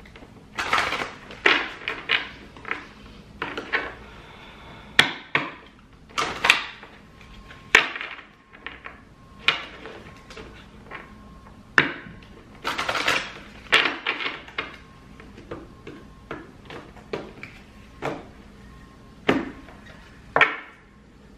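A deck of affirmation cards being shuffled by hand: a long run of quick papery riffles and sharp card slaps at uneven intervals.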